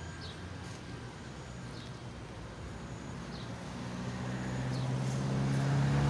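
A motor vehicle's engine drawing near, its low hum growing steadily louder over the last two seconds above a steady traffic rumble. A few faint, short, high ticks come now and then.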